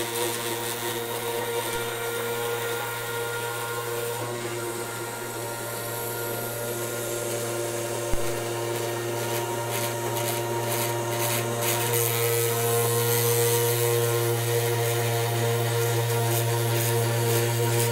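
Homemade CNC router's spindle motor running steadily as its end mill carves a wooden board, a humming whine with a rasp from the cut, somewhat louder about twelve seconds in. A single sharp click about eight seconds in.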